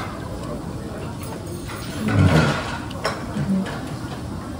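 Restaurant room noise: a steady background hum with a few sharp clicks, and a short, louder low burst about two seconds in.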